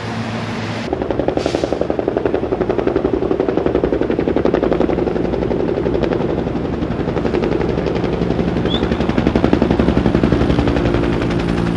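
Helicopter rotor making a rapid, steady chopping that starts suddenly about a second in and grows louder toward the end before easing off.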